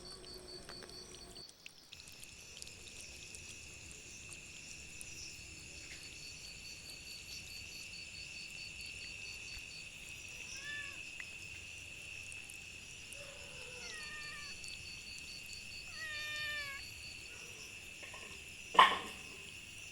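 Stray cats meowing: a few short, pitch-bending meows in the second half, over a steady high-pitched drone. Near the end comes a single sharp, loud crack, the loudest sound.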